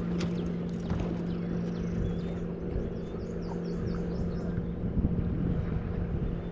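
A boat motor hums steadily at one pitch, with wind buffeting the microphone. A few faint bird chirps sound about halfway through.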